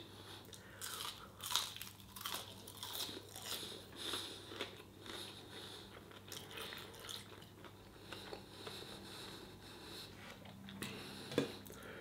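A person chewing a mouthful of battered onion rings, with soft, irregular crunches throughout.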